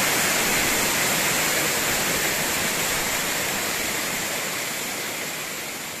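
Waterfall rushing: a steady, even roar of falling water that gradually fades out toward the end.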